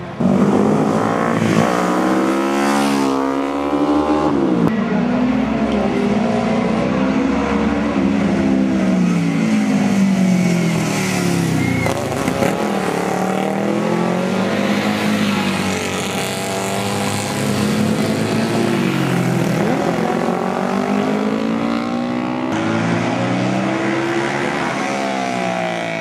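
Classic road-racing motorcycles running hard past one after another, their engines revving high, the pitch rising and falling again and again as the bikes brake, shift and accelerate through the corners.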